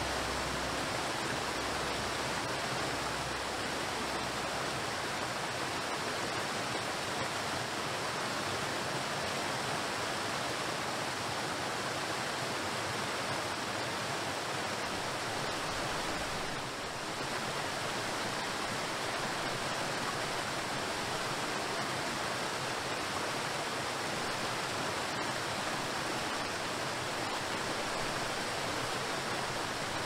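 Waterfall rushing, an even steady roar of falling water that dips briefly about halfway through.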